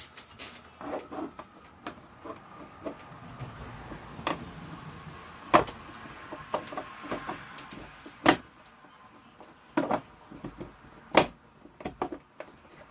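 Plastic lens covers of 12-volt LED ceiling light fixtures being handled and snapped into place: a string of sharp clicks at irregular intervals, the loudest three a few seconds apart.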